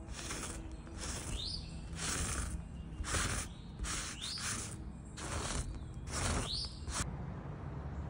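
Rustling of a gloved hand pressing flower petals into wet ink on a canvas, about one stroke a second, several ending in a short rising squeak. The strokes stop about seven seconds in.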